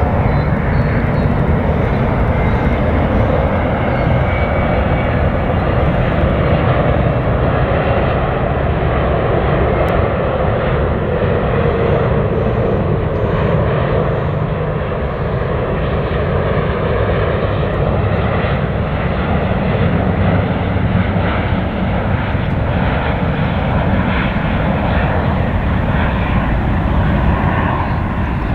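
Airbus A350-900 airliner on final approach to land with its gear down, its Rolls-Royce Trent XWB jet engines running: a loud, steady jet noise with faint tones that slowly slide up and down as it passes.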